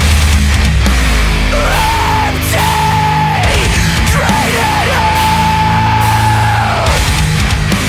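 Heavy metal music: a lead melody that bends between notes and holds a long high note about five seconds in, over a dense low backing.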